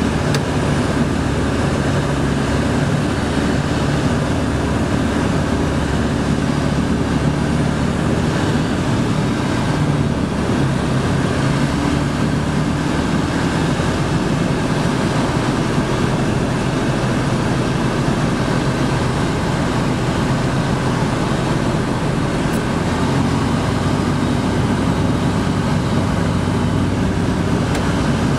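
Ultralight aircraft's engine and propeller droning steadily as heard inside the cockpit, with wind rush. The engine note shifts slightly a couple of times as power is adjusted on the approach to land.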